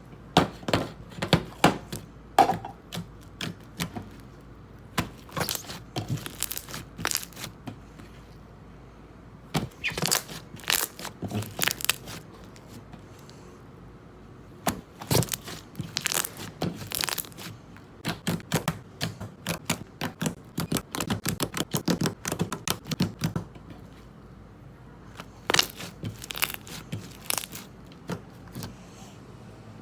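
Slime being squeezed and played with by hand, giving bursts of sharp crackling pops and crunches, with short pauses between handfuls.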